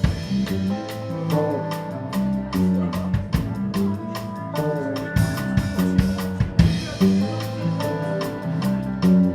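Instrumental rock music: a full drum kit with kick and snare keeping a steady beat under sustained guitar and bass parts, with no singing.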